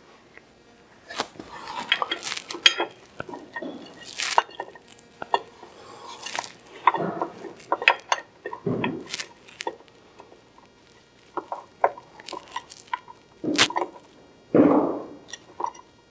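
Hand work on a Polaris RZR 1000 primary clutch while fitting its clutch weights: irregular metallic clicks, clinks and taps from the parts and tools, with a few louder knocks and rustles.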